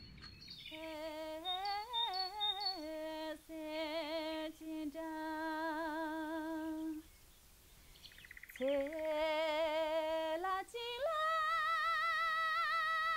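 A high solo voice singing long, held, wavering notes, with no instruments. The voice breaks off for about a second and a half in the middle, then comes back on a higher note.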